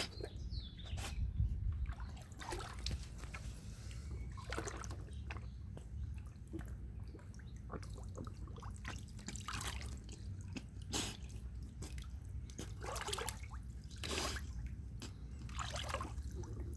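A dog dipping its head into water after a piece of steak, making scattered small splashes and drips over a steady low rumble.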